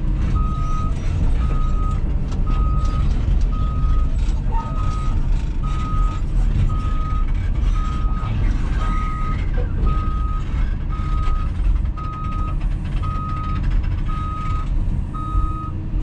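Cat 323F excavator working, heard from inside the cab: the diesel engine runs steadily with heavy low rumble and clanks from the machine. Over it, a single-pitch alarm beep repeats about once a second.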